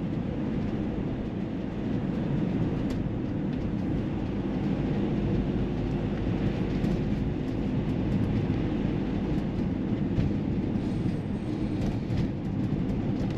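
Steady low rumble of a car driving, the engine and tyre road noise heard from inside the cabin.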